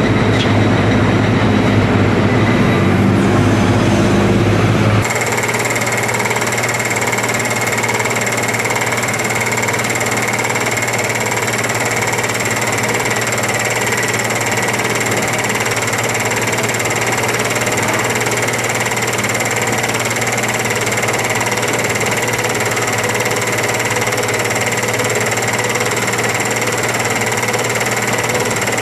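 Rubble tumbling out of a Liebherr R 964B excavator bucket into a steel dump-truck body, over a heavy engine rumble. About five seconds in the sound cuts to the excavator's diesel engine running steadily, with a high, even whine above it.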